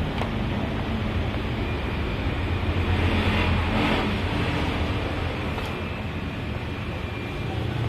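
Steady low hum and rumble, louder for a moment about three to four seconds in, with a faint click near the start and another about two-thirds of the way through.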